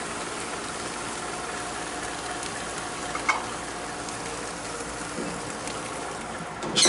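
Foil-wrapped milkfish sizzling on a very hot gas grill, a steady hiss, with a small click midway and a loud sudden clatter at the very end.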